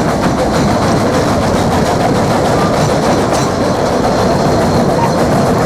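Train running along the track: a steady rumble with a rhythmic clickety-clack of wheels over the rails.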